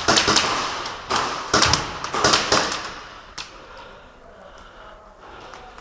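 Airsoft rifle firing several short bursts of sharp cracks in the first few seconds, then going quiet.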